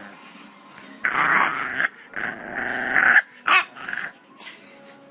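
Bulldog puppy growling: two drawn-out grumbling growls of about a second each, then two shorter, sharper ones.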